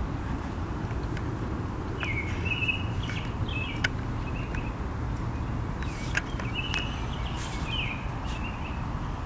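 Birds chirping in short repeated calls over a steady low background rumble, with a few brief clicks.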